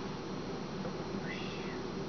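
Steady room hum, with one short, soft whistle that rises and falls about a second and a half in, from a Congo African grey parrot.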